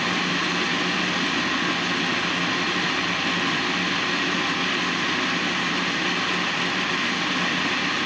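Electric blender motor running steadily at full speed, grinding a jar of cooked tomatoes into a thick purée.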